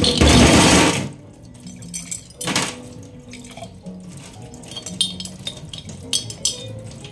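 Tap water running and splashing into a stainless-steel sink as glass jars are rinsed, loudest in the first second and again about two and a half seconds in, with light clinks of glass against the sink.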